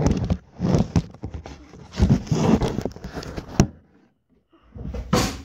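Close handling noise: rustling and rubbing against the microphone with a few sharp knocks as the phone and a leather baseball glove are handled right up against it, with a brief quiet gap about four seconds in.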